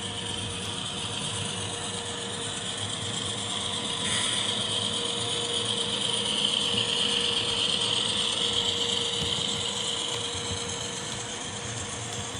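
HO scale model train running on the layout: the locomotive's motor and gears whine while the wheels clatter over the track. It grows louder about four seconds in, as if passing close, then fades toward the end.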